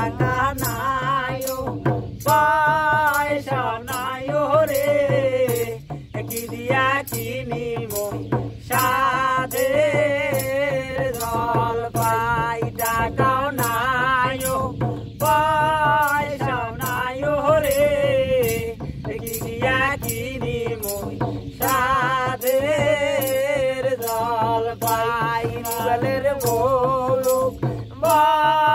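A man sings a Bengali folk song in phrases with short breaks between them. A two-headed barrel drum (dholak) keeps a steady beat under the voice, with sharp, crisp strokes.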